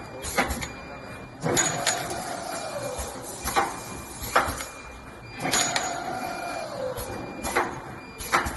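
CNC double-end chamfering machine processing copper pipe in a repeating cycle about every four seconds: a whine that falls in pitch over about a second, followed by sharp clacks and knocks.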